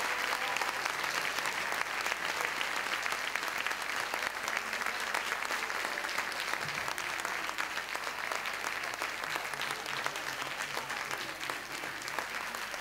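Audience applauding, a dense steady patter of many hands clapping that eases off slightly near the end.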